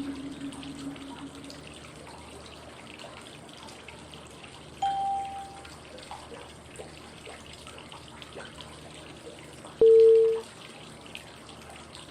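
Steady flowing-water white noise with three short cue tones about five seconds apart: a low tone fading away at the start, a higher tone about five seconds in, and a louder mid-pitched tone about ten seconds in. The tones pace the phases of 5-5-5 breathing: inhale five seconds, hold five seconds, exhale five seconds.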